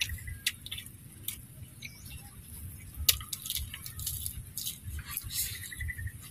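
A person chewing and biting fried duck close to the microphone, with irregular wet clicks and crunches.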